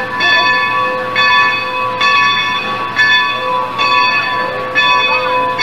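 Locomotive bell ringing steadily, about one stroke a second, each stroke a clear ringing tone.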